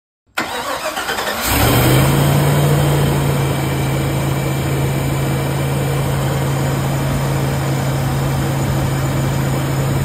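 A Chevrolet 454 big-block V8 with throttle body injection is cranked and catches about a second and a half in, then runs at a steady idle. It is running on a standalone wiring harness and ECU, hot-wired with jumper leads to the battery.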